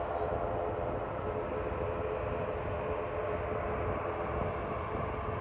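Boeing 787 Dreamliner's jet engines running steadily as it taxis onto the runway: a steady whine of several tones over a low rumble, the lowest tones fading near the end.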